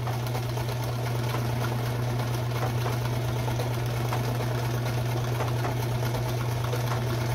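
Kenmore 158.17740 zigzag sewing machine running at a steady speed, with a steady motor hum, stitching a cam-driven decorative fish-shaped pattern set to a wider stitch width.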